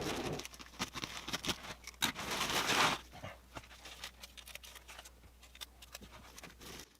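Handling noise: scattered light taps and clicks, with a rustling burst about two seconds in that lasts roughly a second.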